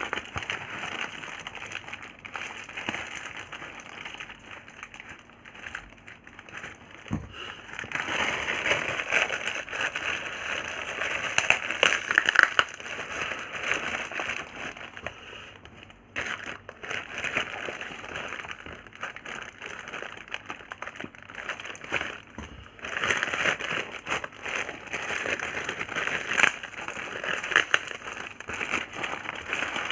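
Plastic packaging crinkling and rustling as a parcel is unwrapped by hand, in uneven stretches of crackling with a short lull about halfway through.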